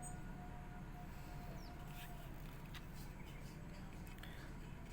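Quiet background ambience with a few faint, short high chirps and small clicks, and a faint steady tone during the first two seconds.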